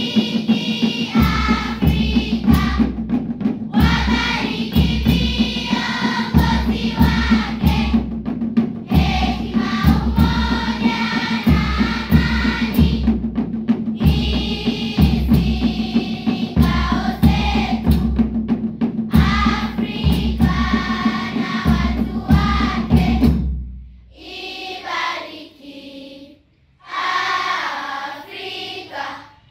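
A choir singing in harmony over a steady, pulsing bass beat; a little before the end the beat drops out and the voices carry on alone.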